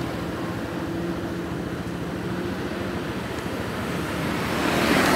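Road traffic: a vehicle engine running steadily, with a rush of passing-vehicle noise swelling near the end.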